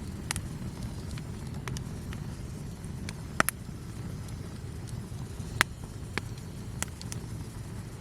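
Wood campfire crackling, with scattered sharp pops, the two loudest about three and a half and five and a half seconds in, over a low steady rumble.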